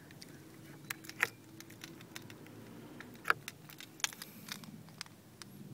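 Scattered light clicks and taps, the sharpest about a second in and just past three seconds, over a low steady hum: handling noise from the camera being moved about inside the car.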